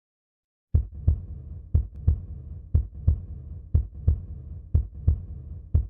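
Human heartbeat as heard through a stethoscope, a steady lub-dub about once a second: each beat is the first heart sound (S1, lub) followed about a third of a second later by the second heart sound (S2, dub). It starts about three quarters of a second in.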